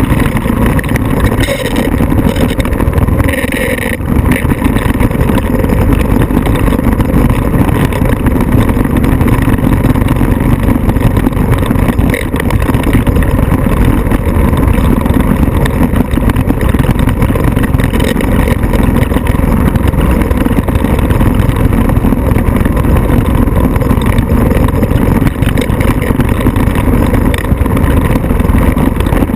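Off-road vehicle engine running loudly and steadily under load, a deep constant rumble, with a brief hissing swish about three seconds in.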